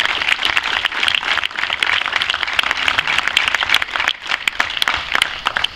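Crowd of players and guests applauding with many hands clapping, dying away at the end.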